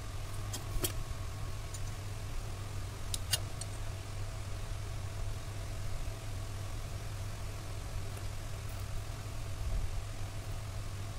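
A steady low hum runs throughout, with a few light clicks about a second in and again just after three seconds.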